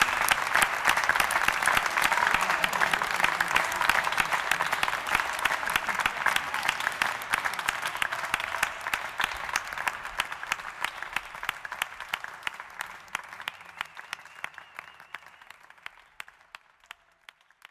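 Audience applause at the end of a live song. It gradually dies away, thinning to a few scattered claps near the end.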